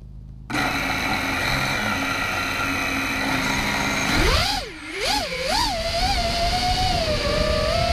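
Brushless motors of an FPV racing quadcopter (Emax 2306 2400kv with Emax Avan R propellers), recorded by the onboard camera. The motors spin up and idle with a steady buzzing whine while the quad sits on the ground. About four seconds in the throttle is punched for takeoff: the pitch swings up and down several times, then settles into a steady high whine in flight.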